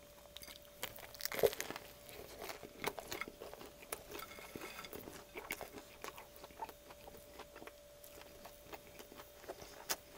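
Close-miked biting into and chewing a toasted jalapeño cheddar bagel BLT sandwich: crunchy bites and small wet chewing clicks, the loudest crunch about a second and a half in.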